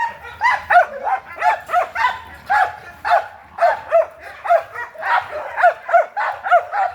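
American pit bull terrier barking over and over, a steady run of sharp barks at about two or three a second.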